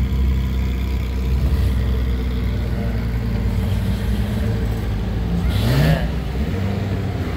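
Ferrari F50's V12 engine running at low speed as the car rolls past, with a short rising rev about five and a half seconds in.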